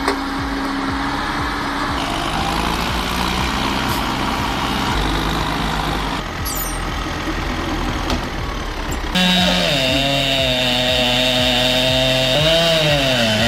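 Heavy truck engine running steadily. About nine seconds in it cuts abruptly to a different, higher-revving engine whose pitch dips and recovers near the end.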